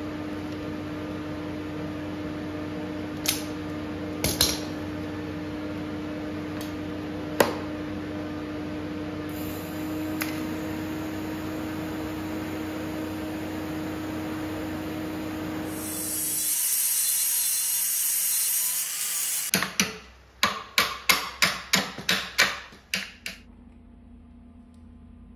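Arc welding of the steel gearbox mount brackets onto the car's chassis frame: a steady hum with a few sharp clicks. About two-thirds of the way in it gives way to a loud hiss for about three seconds, then a quick run of about ten sharp knocks.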